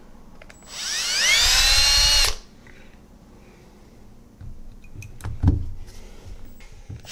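Milwaukee cordless drill drilling into a stripped carburetor fuel-bowl screw: the motor speeds up with a rising whine, runs for about a second and a half and cuts off suddenly. A few handling knocks follow, one sharper than the rest, and the drill starts again at the very end.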